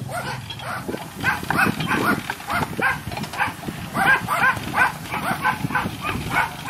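Short animal calls repeated rapidly, about three or four a second, each a brief rise and fall in pitch.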